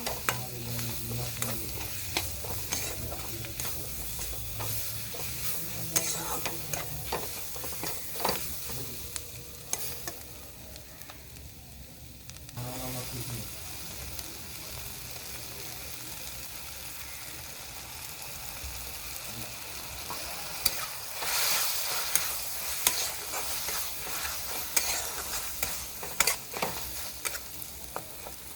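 Capsicum and onion masala frying in oil in a pan, sizzling, while a spatula stirs it with frequent clicks and scrapes against the pan. The sizzle swells for a few seconds about three-quarters of the way in.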